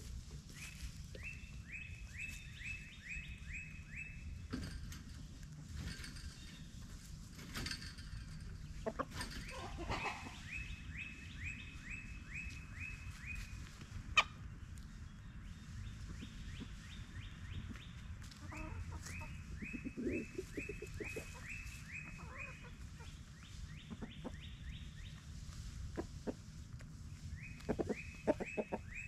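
Backyard chickens foraging in leaf litter: low clucks among scattered scratching and rustling ticks, with one sharp click about halfway through. A run of short high chirps, about five a second, recurs several times in bouts of about two seconds.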